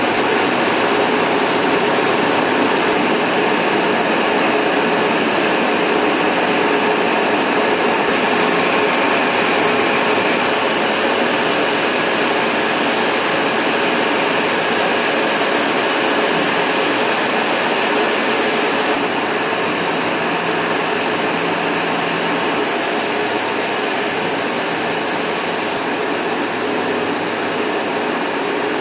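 Machine-shop machinery running with a steady mechanical noise and a faint hum through it, easing slightly in level about two-thirds of the way through.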